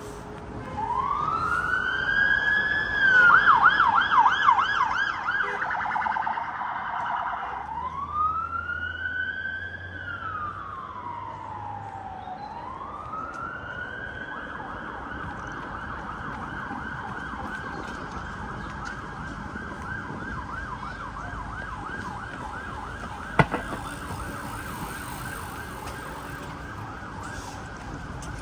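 Emergency vehicle siren. It opens with a rising wail that breaks into a fast yelp, the loudest part. It then swings slowly up and down twice and settles into a steady fast yelp. A single sharp click comes about three quarters of the way through.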